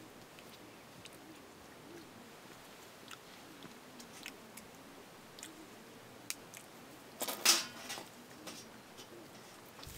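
Small clicks and scrapes of steel plates and a steel tumbler as people eat by hand. About seven and a half seconds in comes one louder metallic clatter.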